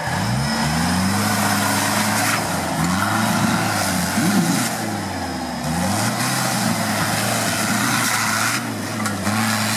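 Toyota Land Cruiser pickup's engine revving up and falling back several times as the truck claws its way up out of a steep ditch off-road.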